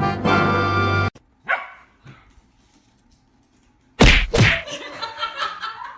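Brass music cuts off suddenly about a second in. After a short falling yelp and a pause, a dog barks twice loudly in quick succession.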